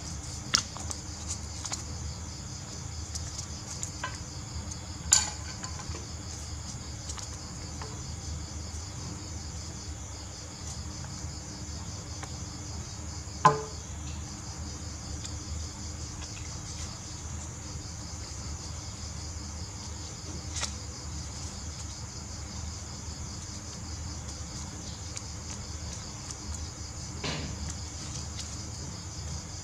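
Insects chirring steadily at a high pitch over a low steady hum, while folded paper is handled with a few sharp clicks, the loudest about halfway through.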